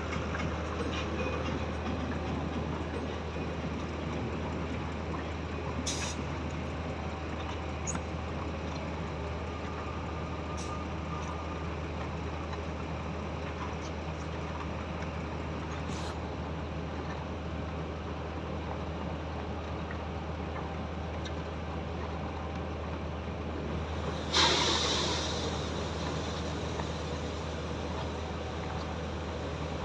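Diesel engines of a concrete pump and transit mixer truck running steadily with a low hum, with a few sharp clicks. About three-quarters of the way through comes a short, loud burst of hissing air that fades away.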